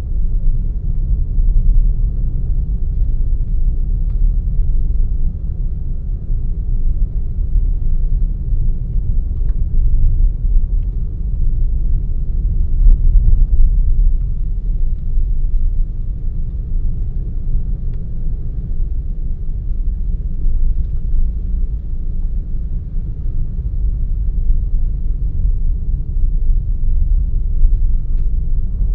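Steady low rumble of a car driving, engine and road noise picked up by an in-car camera, with a few faint ticks.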